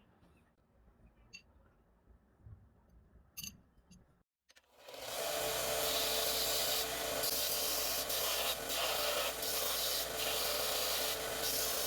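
A few faint clicks, then about four and a half seconds in a steady abrasive grinding noise starts, with a constant motor hum under it, and runs on.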